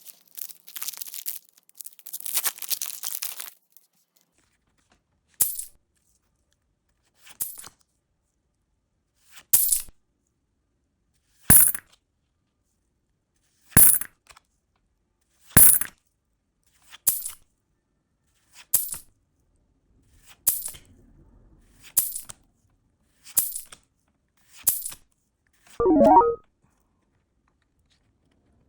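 Foil booster pack wrapper crinkling as it is torn open, then about a dozen short card snaps, one every second and a half or two, as trading cards are flipped one at a time. A short wavering tone sounds near the end.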